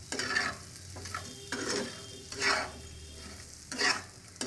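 Spatula stirring diced purple yam (pendalam dumpa) frying in a pan on medium flame: about five scraping strokes, with a light sizzle between them.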